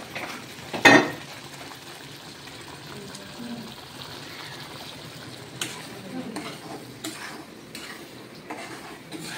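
Spice masala frying gently in oil in a nonstick kadai, a faint steady sizzle. A sharp knock about a second in, and a spoon stirring and clattering against the pan in the second half.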